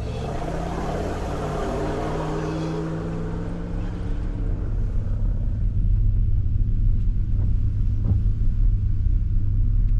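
A motor vehicle driving, its engine drone and road noise steady at first, then getting louder with a heavy low rumble from about halfway through.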